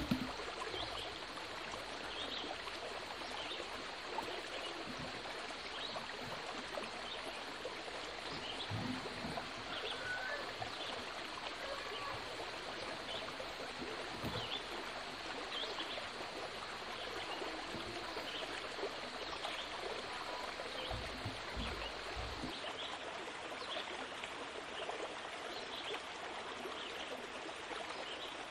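Steady rushing noise like running water, with a sharp click right at the start and a few soft low thumps, bunched just before three quarters of the way through.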